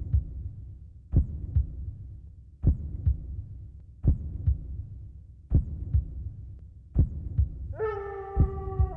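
A slow heartbeat sound effect: paired low thumps, lub-dub, repeating about every second and a half. Near the end a held, steady tone comes in over it.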